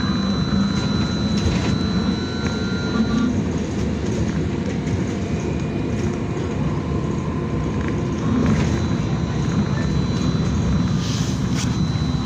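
A Belkommunmash BKM-32100D trolleybus on the move, heard from inside the passenger cabin. There is a steady low rumble of tyres and running gear, with a thin, high, steady whine over it that fades after a few seconds and comes back near the end.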